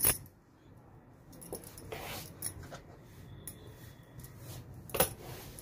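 Blouse cloth being folded and handled: a short soft rustle about two seconds in, between two sharp clicks, one at the start and one about five seconds in, with faint ticks in between.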